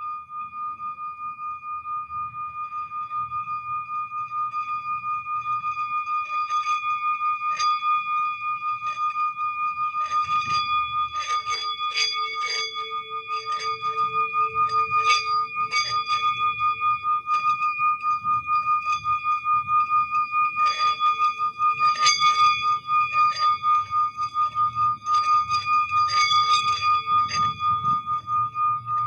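A singing bowl holding one high, steady tone that wavers rapidly in loudness, with clusters of short, sharp struck notes and a lower held tone joining in twice, in the middle and near the end.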